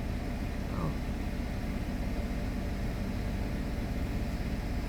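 Steady low rumble of a car heard from inside its cabin, with no thunderclap or other sudden sound. A short exclamation comes about a second in.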